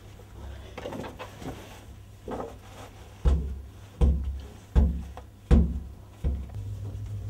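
Hands covering loaves of bread dough with a cloth and patting it down: soft rustles of the cloth, then four dull thumps about three-quarters of a second apart and a fainter one after.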